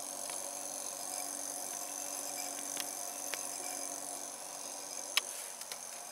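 Electric bike hub motor spinning its wheel freely on a bench test run, driven by a repaired 18-FET controller: a steady electric whine made of several high tones. A few sharp clicks cut through it, the loudest about five seconds in.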